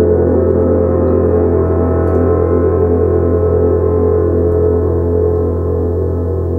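A 70 cm Tibetan gong ringing on after a felt-mallet strike: a dense cluster of overtones that pulse slowly and fade gradually.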